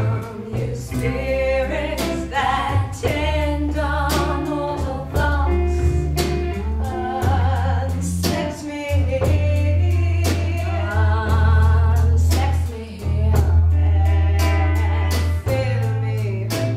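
Women's voices singing with live band accompaniment: a bass holding long low notes that change every second or two, under a steady run of percussive hits.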